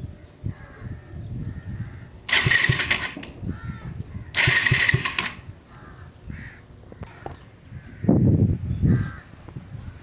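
Two loud hissing bursts of about a second each, then near the end a brief pulsing low whir of about a second from the Pulsar 180's electric starter motor cranking; the engine does not keep running.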